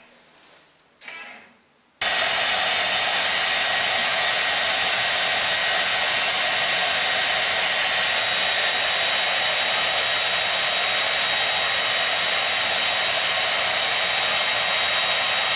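Handheld hair dryer running steadily: an even rush of blown air with a thin high whine in it, starting abruptly about two seconds in.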